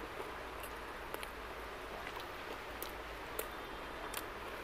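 Faint sounds of two people eating: a few scattered sharp clicks and smacks from chewing mouths and handled food, over a steady room hiss.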